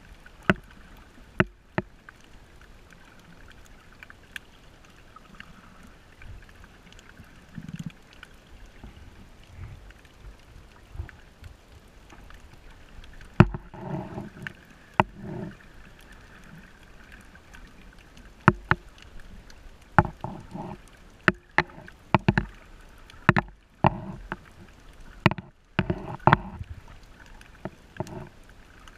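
Water sounds heard underwater while snorkeling: a muffled rushing noise with scattered sharp clicks and knocks, and short low bubbling bursts in the second half.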